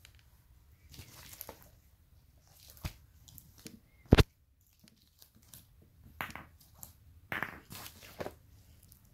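Rustling and scraping as a boules set in its zippered fabric carry case is handled, with a few small knocks and one sharp, loud click about four seconds in.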